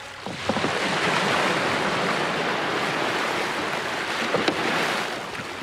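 Steady rush and splash of water as a large voyageur canoe is paddled close past the water's surface, with a few light knocks, easing off near the end.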